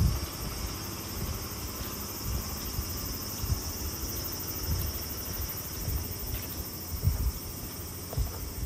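A steady high-pitched chorus of insects. Soft low footfalls from the walker thud about once a second.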